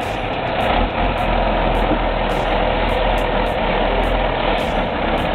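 A heavy vehicle's engine running steadily.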